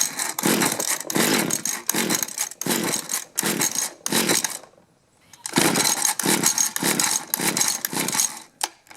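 A Mantis mini tiller's two-stroke engine being cranked on its recoil pull cord in quick strokes of about two a second, two runs with a short pause between. It doesn't settle into steady running.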